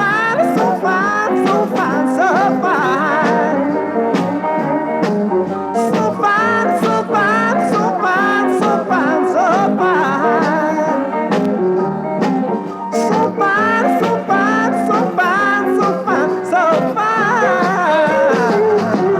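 Band music: an instrumental stretch of a vintage-style pop song, a wavering lead melody over the full band, with no lyrics sung.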